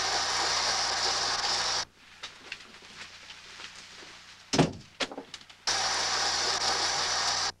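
Water running hard from a bathroom tap, turned on for about two seconds, then a brief squeak and a few knocks, then running again near the end and cut off abruptly.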